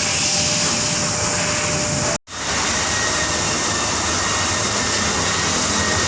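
Steady, loud rushing hiss of a running machine or blower, broken by a sudden cut to silence about two seconds in.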